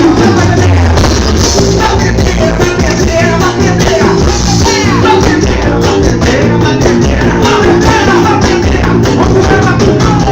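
A band playing loud, continuous music driven by steady, dense percussion, with melody lines over it.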